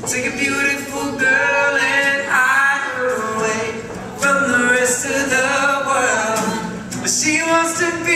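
Live acoustic band music: several male voices sing in harmony, with acoustic guitars and a mandolin strummed underneath.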